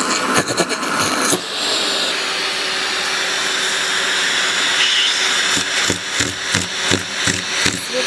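Vacuum cleaner running steadily with its hose nozzle pressed against a cat's fur. In the second half the suction sound pulses about three times a second.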